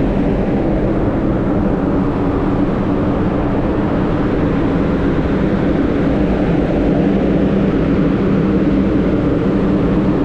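Cargo ship's engine-room machinery and ventilation fans running: a steady, unbroken drone with a constant low hum at a couple of fixed pitches.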